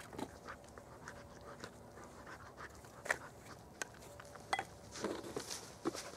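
Scattered light clicks, taps and short rustles of small hand tools and clothing being handled, growing busier and louder near the end.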